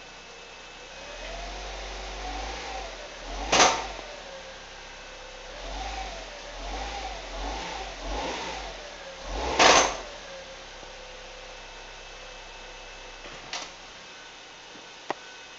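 Mazda 626 engine given light gas twice in drive with the brake held, the revs rising and falling, each time ending in a loud knock from the driveline; a fainter knock follows later. A mechanic takes the knocking for broken gears inside the transmission; a new CV axle has not cured it.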